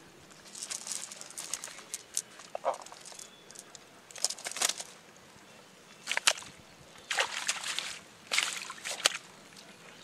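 A wet cast net rustling and live fish flapping and slapping in it as the fish are pulled free by hand, in several short irregular bursts.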